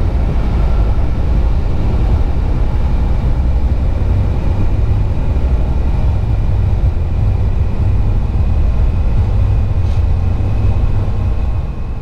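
Road and engine noise inside a vehicle cabin at highway speed: a steady low rumble that fades out at the very end.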